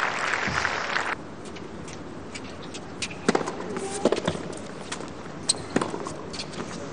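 Crowd applause that cuts off suddenly about a second in, then a quieter tennis arena with a few sharp knocks of a tennis ball bouncing on the hard court and being struck by a racquet.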